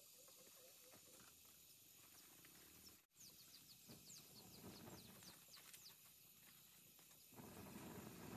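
Near silence: faint outdoor ambience with a bird giving a quick run of short, high, falling chirps, and two soft low rushing sounds.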